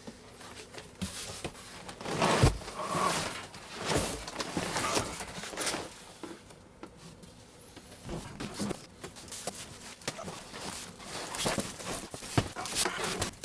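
Cardboard box and foam packing being handled as a large resin 3D printer is worked out of its box: irregular rustling, scraping and knocks, with a heavier thump about two and a half seconds in.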